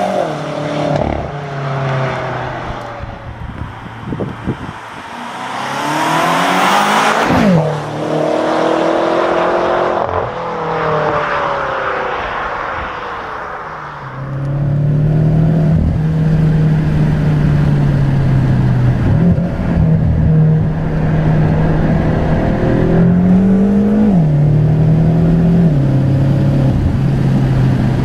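BMW M5 F10's twin-turbo V8 through an aftermarket KKS-Performance exhaust, accelerating with its pitch climbing and dropping at each gear change. About halfway it settles into a steady, louder drone, with one more climb and sharp drop near the end.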